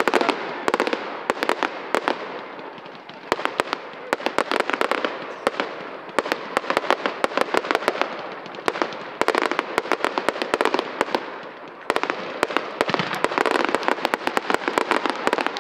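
Fireworks display: aerial shells bursting in rapid strings of sharp cracks and pops, coming in several volleys with short lulls between them.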